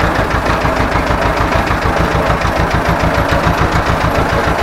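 Ursus C-330M tractor's two-cylinder diesel engine running steadily with an even, rapid low chugging.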